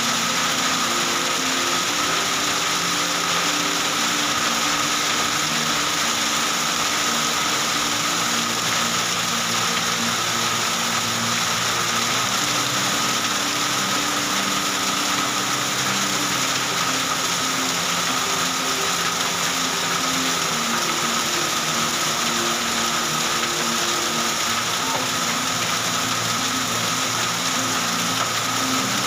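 Heavy rain with hail falling, a steady loud hiss, with soft background music of slow, changing low notes underneath.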